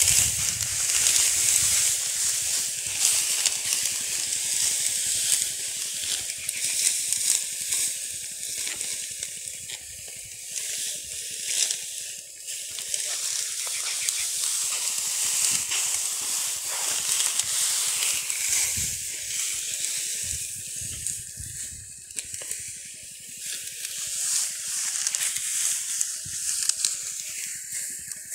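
Dry cut wheat straw rustling and crackling as armfuls of stalks are grabbed and gathered into bundles by hand: a continuous, crisp, high-pitched rustle made of many small crackles.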